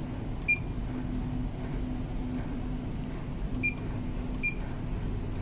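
Furuno NAVTEX NX-700 receiver's keypad beeping as its keys are pressed: three short high beeps, one about half a second in and two close together near the end, over a low steady hum.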